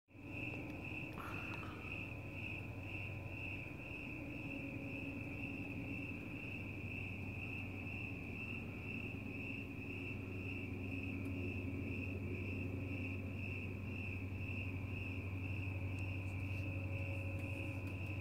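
Crickets chirping in a steady, even rhythm of repeated chirps, with a low steady hum underneath.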